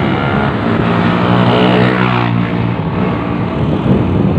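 Honda CRF motorcycle's engine running under way at low road speed. Its note rises and is strongest through the first half, then drops away a little past the middle.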